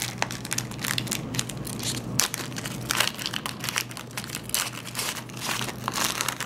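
Foil trading-card pack wrapper crinkling as it is torn open by hand: a dense run of irregular crackles.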